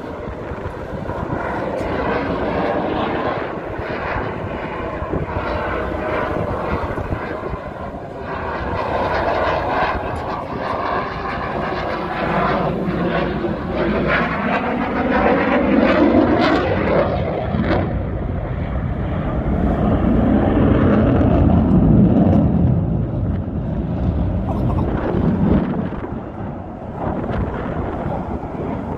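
Fixed-wing aircraft flying past overhead, its engine noise swelling and fading with sweeping shifts in pitch. It is loudest a little past halfway through and again about three-quarters of the way in.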